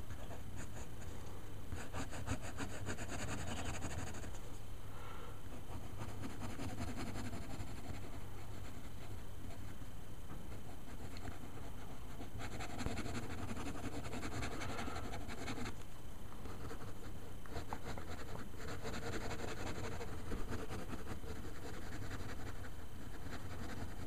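Fine-liner ink pen scratching on paper in quick, repeated hatching strokes, coming in runs of a few seconds with short pauses between them, over a low steady hum.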